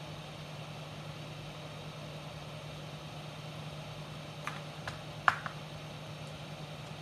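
Four quick clicks and taps of small parts being handled on a workbench, bunched together about four and a half to five and a half seconds in, the third the loudest. Under them runs a steady low hum with hiss.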